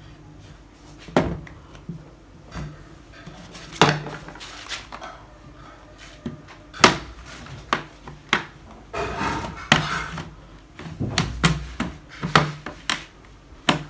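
Plastic clips of a Dell Inspiron 5570's bottom cover snapping and clicking loose as it is pried open with a card: a series of sharp irregular clicks and knocks, with some scraping of plastic about nine to ten seconds in.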